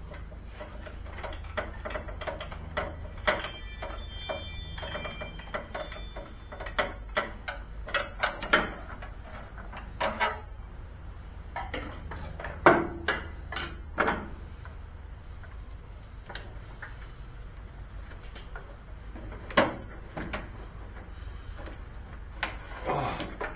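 Irregular clicks, clinks and knocks of hands and metal tools working on a lawn tractor's battery hardware and wiring, close together for the first half and sparser later, with a few louder knocks.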